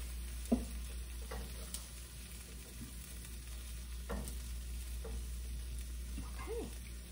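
Silicone-tipped tongs scraping and tapping in a hot nonstick frying pan as chicken and garlic are picked out, giving a few short separate knocks and clicks, with a faint sizzle from the pan.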